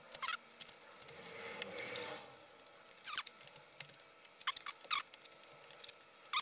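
A few short, faint scrapes of a bench chisel paring a dovetail in softwood, spaced a second or more apart, working close to a knot in the board.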